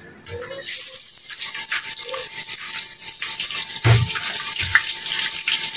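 Chopped onions sizzling as they drop into hot ghee in a pot, with a steady hiss that builds about half a second in. A dull knock about four seconds in.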